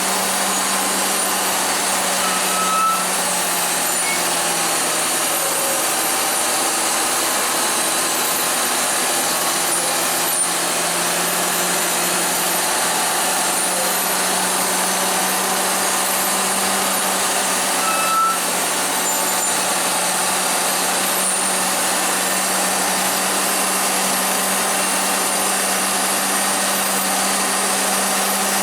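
Heavy truck running steadily: a constant low drone under an even hiss, with two short faint chirps, one about 3 seconds in and one about 18 seconds in.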